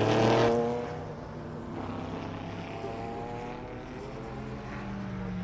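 A race car passes close by at the start, its engine note falling in pitch and fading as it goes. Fainter race-car engine notes from further along the track carry on behind.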